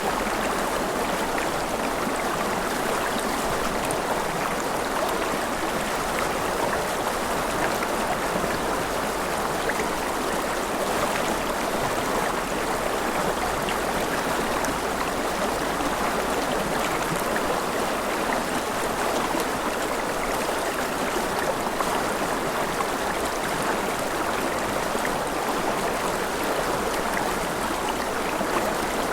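River water flowing over stones in a steady, even rush with small splashes and trickles.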